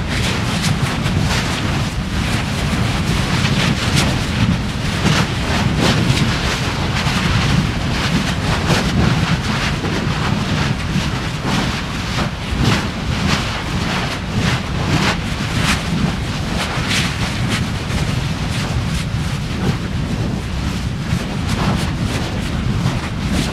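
Lava erupting from a volcanic fissure: a steady low rumble with frequent sharp crackles and pops from spattering lava.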